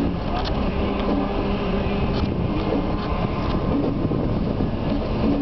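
Diesel locomotive running steadily as it hauls a wood chip train slowly past, heard from inside a car, with a few sharp clanks from the train.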